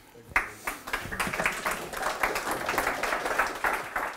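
Audience applause: many hands clapping at once, starting about half a second in.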